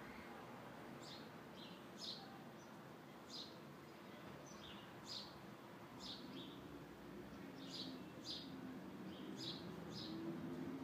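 A small bird giving short, high, falling chirps, about a dozen of them at irregular intervals, over faint background hiss.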